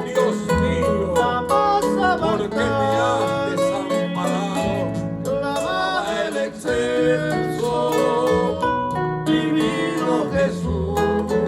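Hymn music played live: plucked string instruments picking quick notes over a steady bass line, with no clear sung words.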